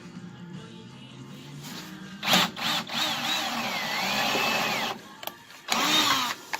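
Power drill boring rivet holes through thin sheet metal in two runs, a long one starting about two seconds in and a short one near the end, the bit squealing up and down in pitch as it cuts.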